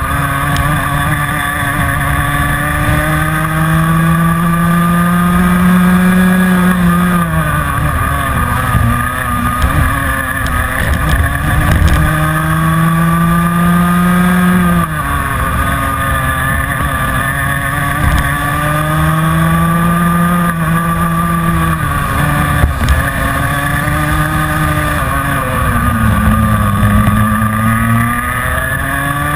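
Onboard sound of a Minimax racing kart's 125 cc Rotax two-stroke engine at racing speed. Its note climbs slowly as the kart accelerates and falls away sharply each time the driver lifts for a corner, about four times.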